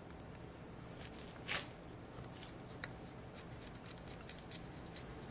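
Faint handling noise from small laptop parts and tools being worked on: scattered light clicks, with one sharper click or scrape about a second and a half in and a small tick near the three-second mark, over a low steady hum.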